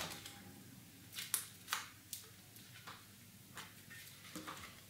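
Faint, scattered crackles and taps of thin cardboard strips and sticky tape being handled and pressed onto a cardboard puppet-head frame.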